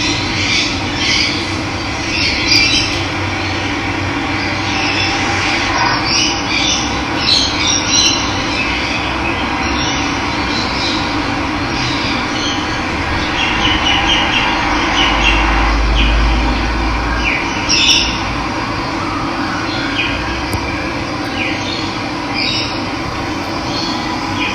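Steady rush of running water with many wild birds chirping over it.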